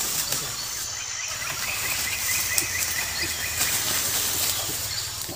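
Rainforest ambience: a steady hiss of insects, with a quick run of short, evenly spaced chirps for about two seconds in the middle.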